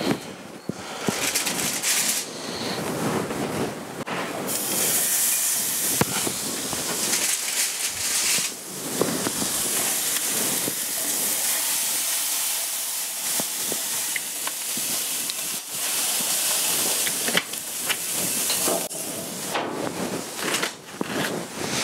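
Butterflied leg of lamb sizzling steadily as it sears, fat side down, on the grate of a Weber gas grill running at full heat. The sizzle swells a few seconds in, and a few sharp clicks of handling come near the end.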